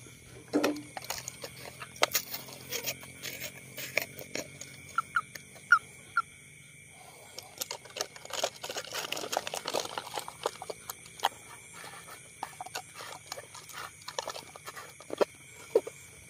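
Crinkling, crackling plastic and handling clicks as hands work a clear plastic bottle used to hold caught young frogs, coming in irregular clusters of sharp clicks, over a faint steady high chirring of night insects.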